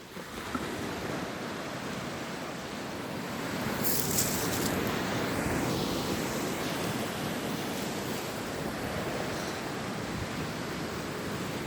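Sea surf washing onto the beach, a steady rush that swells about four seconds in with a brief high hiss.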